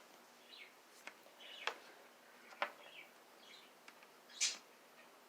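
Faint bird chirps in the background, with a few sharp small clicks or taps and a short hissy rustle about four seconds in.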